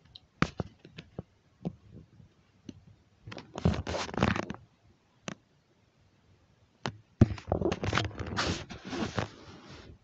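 Handling noise close to a tablet's microphone: scattered clicks, then two longer bouts of rustling and scraping, about three and a half and seven seconds in, as the device rubs against bedding.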